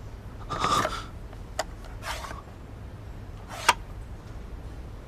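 Two short breathy gasps or exhales, about half a second in and again around two seconds in, with two sharp clicks between and after them.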